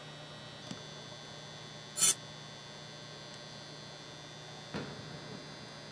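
Steady low hum in an indoor soccer hall, broken about two seconds in by one short, sharp, loud burst of noise. Near the end a soccer ball is struck with a thud as a corner kick is taken.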